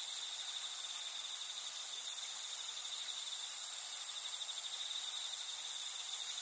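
A steady, high-pitched chorus of crickets trilling without a break.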